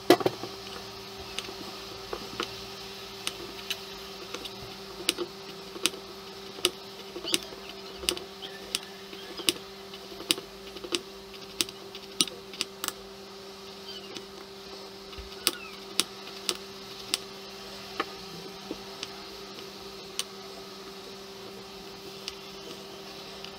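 A kitchen knife slicing a carrot and then a cucumber into rounds on a wooden cutting board, each cut ending in a sharp tap on the board, about one every second or less, the taps thinning out near the end. A loud knock comes right at the start.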